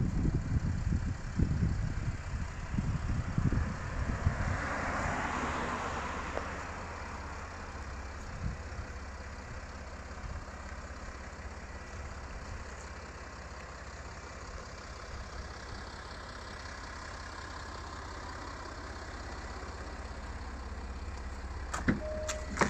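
Outdoor road ambience: a car passes on the nearby road, its tyre noise swelling and fading about five seconds in, over a steady low rumble and some wind buffeting on the microphone at the start. A couple of sharp clicks near the end, as of a car door latch opening.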